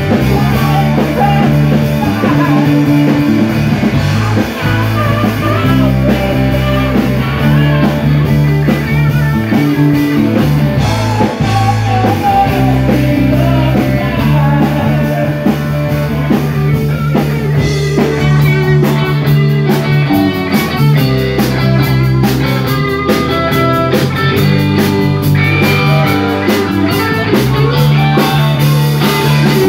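Live blues-rock band playing a jam: electric guitars, bass guitar and drum kit, with a harmonica.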